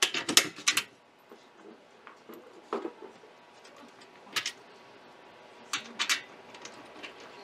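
Sharp metal clicks and clinks of a quarter-inch bolt being handled and fitted through a hole in angle aluminum: a quick cluster at the start, single clicks about three and four and a half seconds in, and two more about six seconds in.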